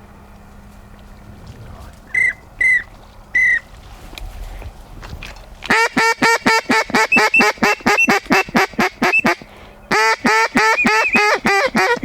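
A few short whistle notes on a drake whistle, then a hunter's mallard duck call blown hard in two long runs of rapid quacks, several a second, calling to an incoming drake mallard.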